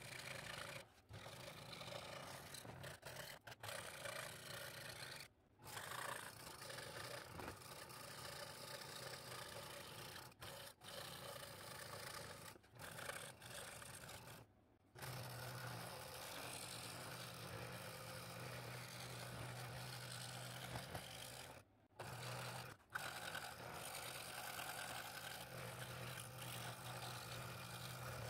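Scroll saw running and cutting through a stack of three thin hardwood boards: a faint steady low hum with a rasping cut over it. It is broken by several brief gaps, two of them near the middle and two about three-quarters of the way through.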